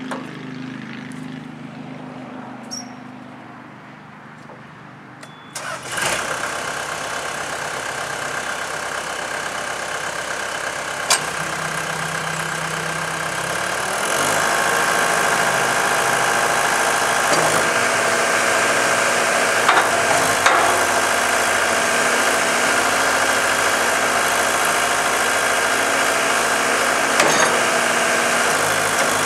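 Cat 277B compact track loader's diesel engine starting about five seconds in and settling into steady running. About halfway through it steps up to a louder, higher-throttle run, with a few sharp clanks.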